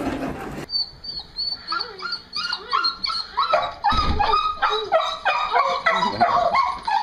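A small dog whining and yipping excitedly in a rapid string of short, high cries that rise and fall, greeting its returning owner. There is a thump about four seconds in.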